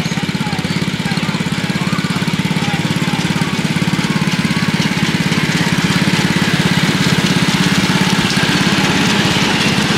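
Small engine of a 7¼-inch gauge miniature locomotive running steadily with a fast even pulse as it hauls a loaded passenger train past, growing louder through the first half as it draws near.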